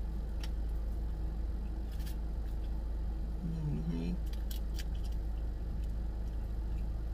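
Steady low hum of an idling car with its air conditioning running, heard from inside the cabin. Over it come a few sharp clicks and crunches of someone chewing crispy fried chicken, and a short closed-mouth hum about halfway through.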